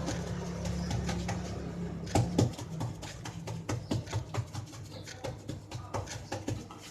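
Oiled hands pinching off and shaping balls of soft yeast dough for batbout: a run of short, soft wet slaps and squelches at about two or three a second, over a low steady hum in the first couple of seconds.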